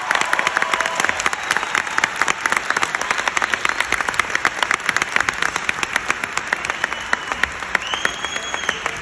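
Concert audience applauding: dense clapping that thins out and grows quieter toward the end.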